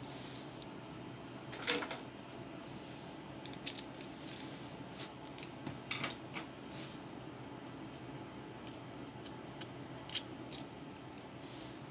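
Scattered light clicks and taps over a steady low hiss, with a louder cluster about two seconds in and a sharp pair of clicks near the end.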